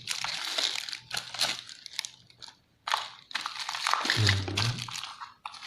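Small plastic-bagged camera accessories crinkling and rustling as they are handled, in several bursts with short pauses between.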